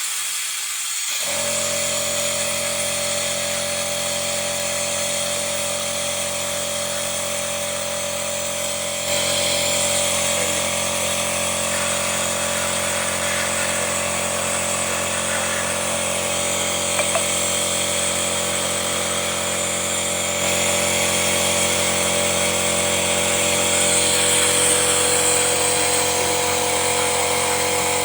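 2019 Honda Brio's four-cylinder petrol engine running steadily during an engine carbon-cleaning treatment, with a steady hiss over it. It gets a little louder about nine seconds in and again about twenty seconds in.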